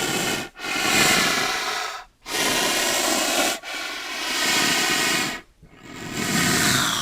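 Rhinoceros breathing: a series of loud hissing breaths, each a second or two long, with brief pauses between them.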